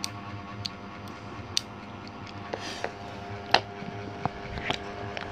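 Metal parts of a PCP air-rifle trigger unit (sear, hammer and springs in an aluminium housing) clicking as they are cocked and released by hand: a string of about ten sharp, irregular clicks, the loudest about three and a half seconds in.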